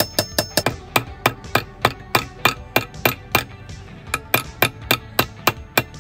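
Claw hammer being knocked against a steel anvil to seat its head on a new wooden handle: a steady run of sharp knocks, about three a second, each with a short ring.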